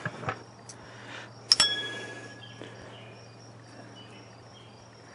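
A single sharp metallic clink about a second and a half in, ringing briefly: a small metal part striking metal during a carburetor removal. A faint steady hum underneath.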